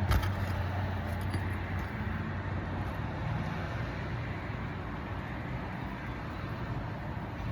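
Steady low motor hum under a constant rushing noise, the higher part of the hum dying away about two seconds in. A sharp click right at the start and lighter ticks about a second later.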